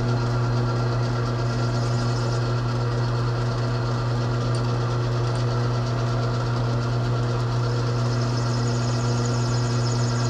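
Metal lathe running under power as the tool takes a cut, with a steady, unchanging motor hum.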